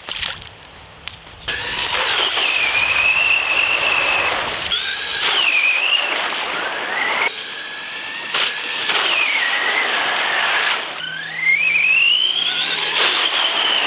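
JLB Cheetah RC car's electric motor whining at high revs, its pitch rising and falling several times with the throttle, over a steady hiss of water spray as the stock tires spin and churn in the water. The car cannot get on top of the water on these tires. The sound starts about a second and a half in.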